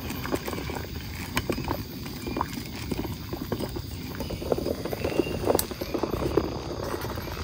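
Water boiling hard in an aluminium mess tin over a gas camping stove: a dense, irregular run of bubbling pops.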